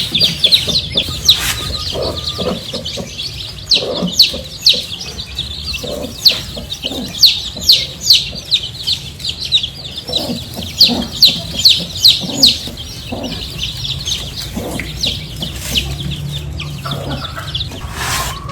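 Aseel chickens calling: a busy run of rapid, high-pitched peeping calls, each a short downward sweep, mixed with lower clucks.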